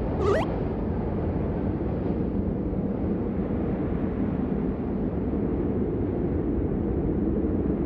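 Steady low rumble of rushing wind, a flying-through-the-sky ambience, with one brief whistling glide about a third of a second in.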